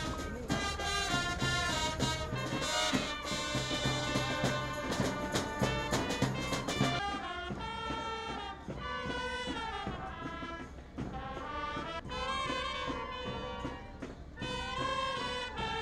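Brass band music playing a melody, a little quieter and thinner from about seven seconds in.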